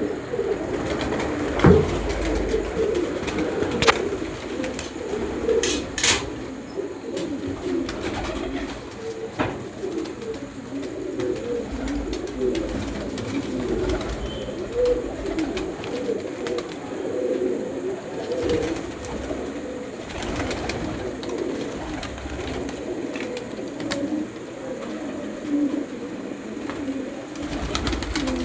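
A crowd of domestic pigeons cooing together in a continuous, overlapping warble, with a few sharp knocks in the first ten seconds.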